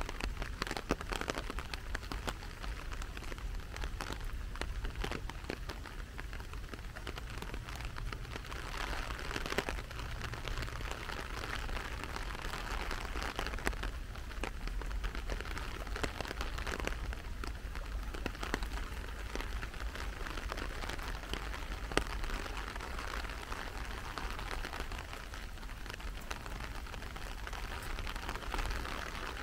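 Steady rain falling, with many scattered sharp ticks of individual drops landing.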